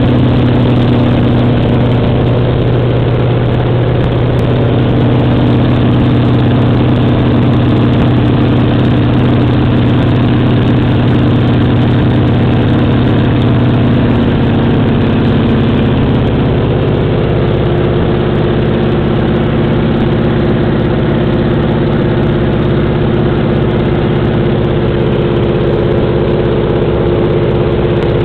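Antonov An-2's nine-cylinder Shvetsov ASh-62 radial engine and propeller at takeoff power during the takeoff roll, heard loud from inside the cockpit. The steady drone shifts in pitch about halfway through.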